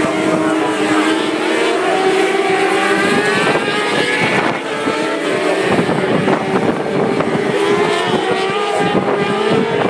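Racing motorcycles passing at speed, several engines overlapping, their high-revving note rising and falling as they go through the corner.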